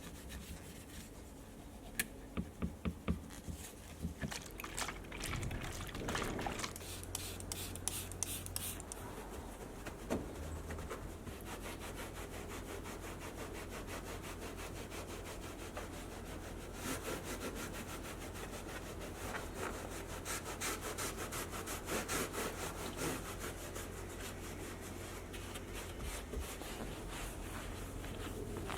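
Scrubbing in quick, regular back-and-forth strokes during car detailing, with a few light taps two to three seconds in and a steady low hum underneath.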